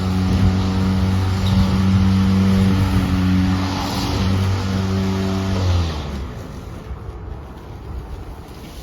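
EGO battery-powered lawn mower running at a steady pitch, then switched off about six seconds in, its motor and blade spinning down with a falling tone.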